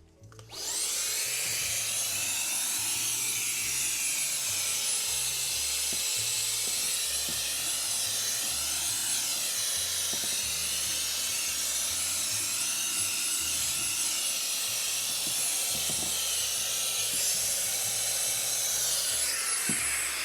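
A small electric motor appliance spins up with a rising whine, runs steadily with a high whine over a rushing noise, then winds down near the end.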